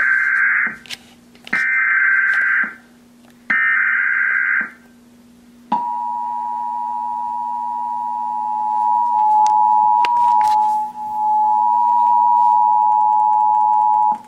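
Emergency Alert System tones from a television: three short buzzing bursts of the digital data header, then, about six seconds in, the two-tone attention signal, held steady for about eight seconds. It announces a National Weather Service tornado warning.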